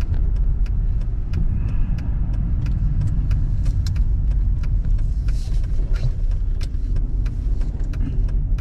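Car driving on a snowy, icy road, heard from inside the cabin: a steady low road rumble with frequent irregular clicks and ticks from the tyres over snow and ice.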